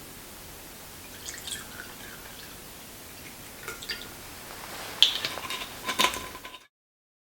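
Small kitchen taps and drips over a steady hiss, with a sharp tap about five seconds in and another about a second later, then the sound cuts off.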